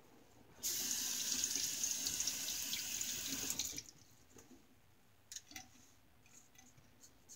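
A bathroom sink tap runs for about three seconds and stops abruptly, rinsing a safety razor. Afterwards come a few faint scrapes of the razor on lathered stubble.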